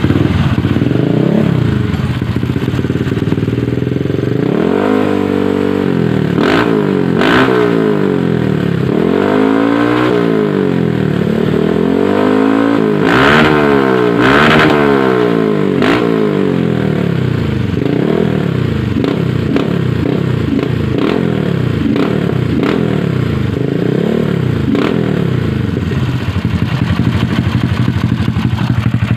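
Yamaha scooter's single-cylinder engine running through a newly fitted CLD C2 aftermarket exhaust for a sound check. It is revved repeatedly, its pitch rising and falling with each blip through the first half, then settles into a steady idle for the second half.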